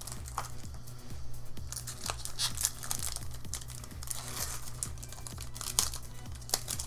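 Foil wrapper of a Pokémon trading-card booster pack crinkling and tearing as it is pulled open by hand, in a run of sharp crackles. Background music with a steady beat plays underneath.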